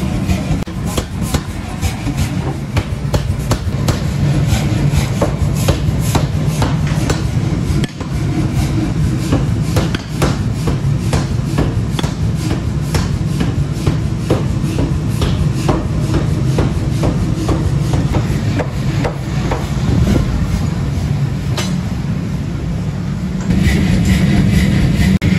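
Repeated sledgehammer blows on a red-hot steel bar lying on the ground, sharp metal strikes over a steady low hum. The hum grows louder near the end.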